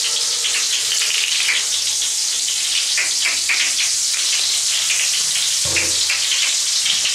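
Donald Duck Knisterspaß crackle-bath granules dissolving in bath water, crackling with a steady sizzling hiss full of small pops.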